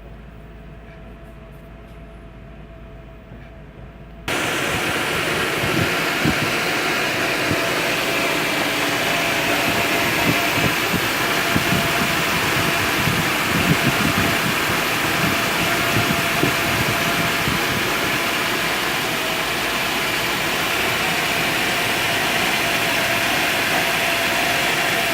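Mercedes G 300 engine idling unevenly, the rough idle the owner is asking for help with. About four seconds in it suddenly gets much louder and noisier, with an irregular low flutter.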